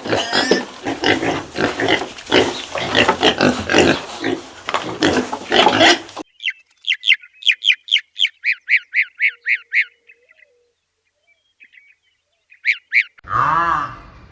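A sequence of farm animal sounds. First comes about six seconds of loud, harsh pig squealing and grunting. It is followed by a rapid run of short, high bird chirps, about four a second, and near the end by a loud honking call.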